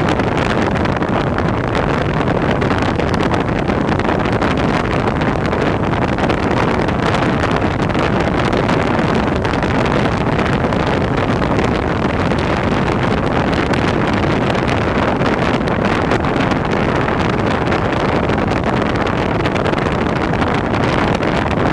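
Steady wind rush over the microphone mixed with the running noise of a vehicle on the move, a dense, even roar that does not let up.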